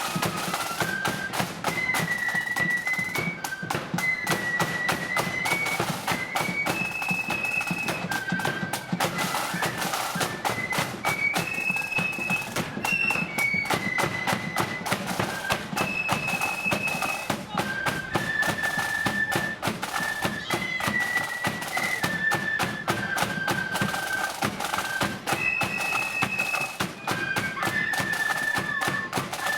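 Marching flute band playing a tune: flutes carry the melody over rapid, continuous snare drumming and a bass drum.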